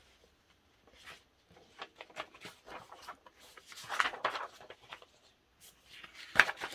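Large paper pages of a photobook and its folded posters rustling as they are handled and turned, with a louder rustle about four seconds in and a sharp paper crackle near the end.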